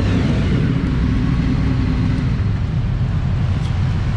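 Motorcycle engines running at low revs inside a covered parking garage, among them the onboard Aprilia Dorsoduro 750's V-twin, giving a steady low rumble as the bikes pull in and stop.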